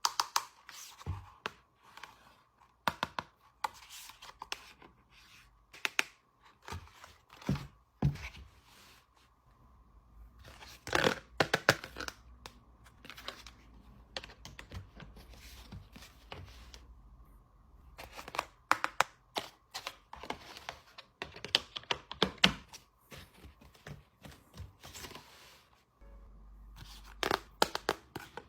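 Packaging being torn open and crinkled by hand, in irregular bursts of tearing and crackling with small clicks and knocks.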